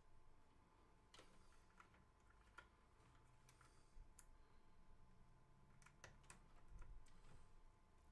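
Near silence with faint, scattered small clicks and rustles: plastic cable connectors and wires being handled and plugged in at the back of a PC case.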